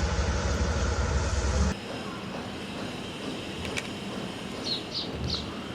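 A vehicle engine running with a steady low rumble that cuts off abruptly under two seconds in. Quieter background follows, with a few short high chirps near the end.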